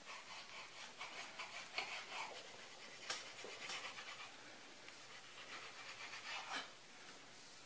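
Raw beef being sliced thin with a sharp knife and handled on a wooden cutting board: faint, irregular soft scrapes and rubs.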